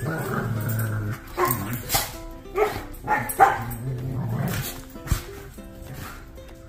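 German Shepherds play-fighting: a low growl, then several short, sharp barks over the next couple of seconds. Music plays underneath, left on its own near the end as the dogs go quiet.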